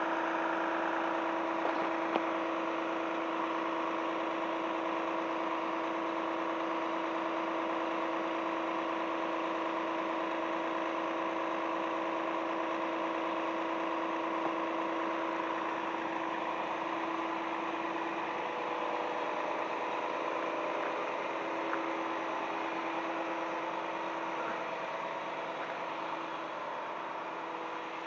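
Volvo FM fire truck's diesel engine running at a steady speed, driving the hydraulics that bring the aerial platform's boom slowly back. A steady hum with a clear tone that starts to waver in the last third.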